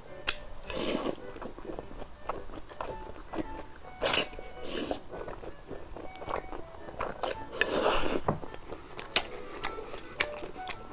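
Slurping and chewing of wide biang biang noodles in chili oil. Short slurps come about a second in and near four and five seconds, and a longer slurp around eight seconds, with light clicks and taps in between.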